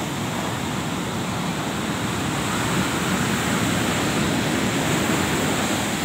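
Heavy surf: big waves breaking and washing up over a muddy shore, a steady rush of water that grows a little louder about halfway through.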